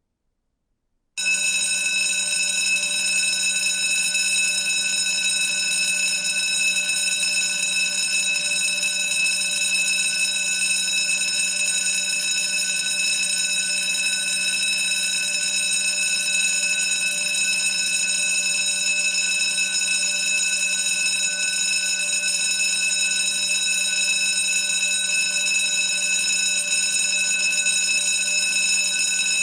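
School bell ringing continuously: it starts suddenly about a second in after silence and holds a loud, steady, unbroken ring.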